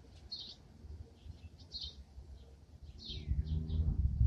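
Small birds chirping in the background: short high chirps and a few falling notes, scattered through. A low rumble comes in about three seconds in.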